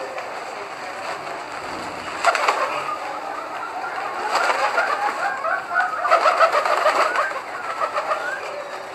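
A flock of domestic pigeons cooing together, many voices overlapping, building up about two seconds in and busiest in the middle. A few short flutters of wings are mixed in.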